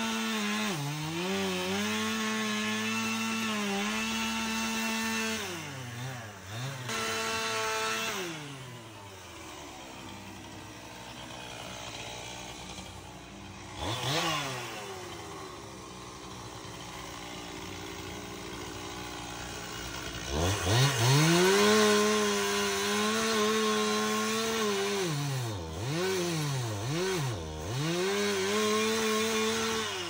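Gas chainsaw cutting into a pine trunk at full throttle, its pitch sagging under load. Through the middle it drops to a lower, quieter running with one brief rev. It then revs up again to cut, with the throttle let off and picked up again several times near the end.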